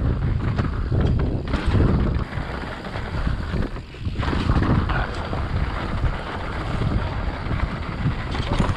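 Wind rushing over the microphone while a mountain bike rolls fast down a dirt and rock trail, its tyres crunching over the ground, with short clattering knocks as it hits rocks and bumps.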